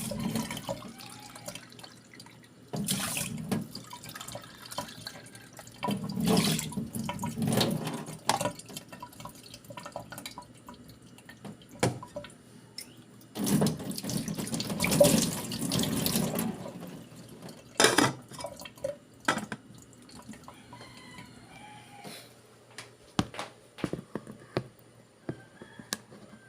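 Tap water running in several short bursts of a few seconds each, splashing into a sink or container. Light clicks and knocks follow in the quieter last part.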